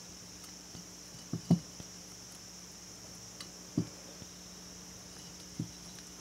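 A few dull knocks and bumps as the aluminium cylinder head and its valve springs are handled while the springs are pressed down by hand to seat the valve keepers, the loudest pair about a second and a half in, over a steady high hiss.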